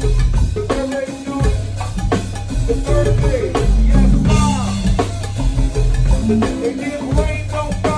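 A go-go band playing a steady groove: drum kit and percussion hits over a bass line, with melodic instruments on top.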